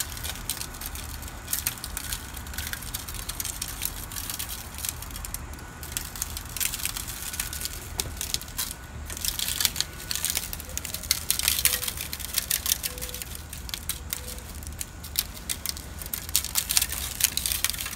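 Shaker bottle of dry barbecue rub being shaken, the granules rattling in quick irregular bursts that grow busier in the second half.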